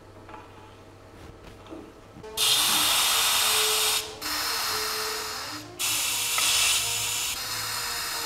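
Compressed air hissing from the test stand's pneumatic clamps as a shock absorber is clamped in. It comes as three loud stretches starting about two seconds in, with two short breaks between them, and a faint steady tone underneath.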